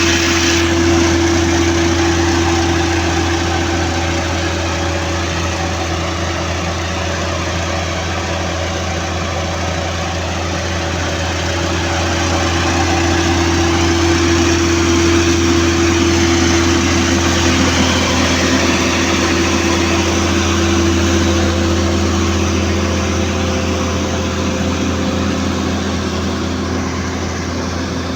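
Construction machine's engine idling steadily, with a low, even hum that swells slightly and eases again.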